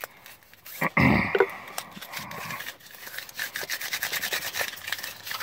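A thump about a second in, then a business card being crinkled and rubbed between the fingers, a fast run of crackles, as its creases are worked out so it will roll into a tube.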